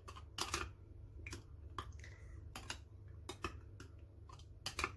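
About a dozen light clicks and taps at irregular spacing, from kitchenware being handled, with a steady low hum underneath.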